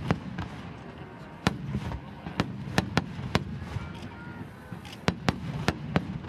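Aerial firework shells of a large starmine barrage bursting: about a dozen sharp bangs at irregular spacing, with a short lull a little past the middle, over a continuous low rumble.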